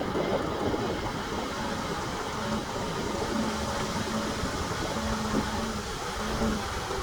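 A heavy diesel earthmoving machine running and working, with a steady mechanical noise. A low tone comes and goes in short stretches during the second half.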